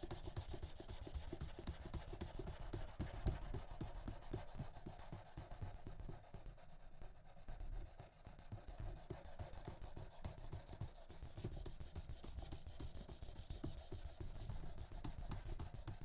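A 240-grit diamond sharpening stone on a guided Work Sharp Precision Adjust system, stroked repeatedly along a soft-steel knife edge in a steady run of short scraping strokes: grinding the bevel while trying to reach an apex and raise a burr.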